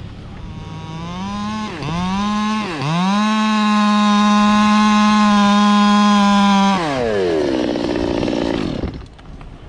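Stihl 200T two-stroke top-handle chainsaw revving up, dropping off twice briefly, then held at full throttle for about four seconds before the throttle is released and the engine winds down to idle and fades.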